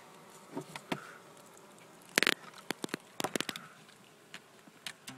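Handling noise from a wooden hive frame of cut-out comb being moved with gloved hands: a short scraping rustle about two seconds in, then a quick run of clicks and light knocks.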